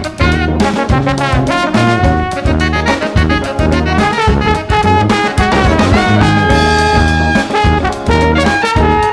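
Jazz-Afrobeat band recording: saxophone and trombone playing fast horn lines over a tuba bass line and drum kit, with guitar and keyboard in the band. The low bass notes pulse in a repeating pattern under the busy horn melody.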